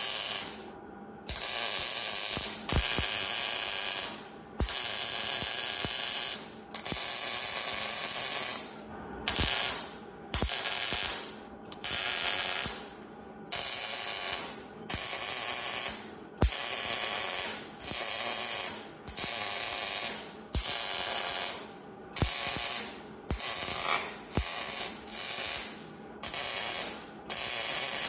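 Pneumatic air ratchet run in short bursts of about a second each, over and over, with a hiss of exhaust air, spinning fasteners in or out.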